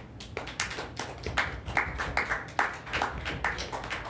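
A small audience clapping at the end of a song: scattered, uneven claps from a handful of people.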